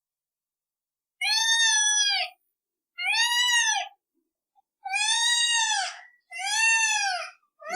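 A cat meowing repeatedly, about five meows starting a second or so in, each about a second long and rising then falling in pitch.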